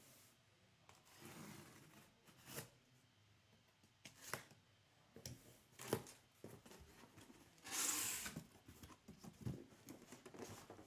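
Trading card packs being handled and torn open: scattered soft rustles and clicks of wrappers and cards, with one longer rip about eight seconds in.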